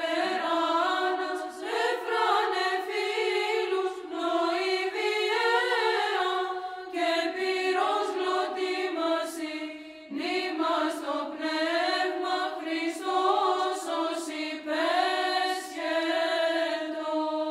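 A congregation of men and women singing an Orthodox church hymn together, unaccompanied, in sustained phrases with short pauses for breath.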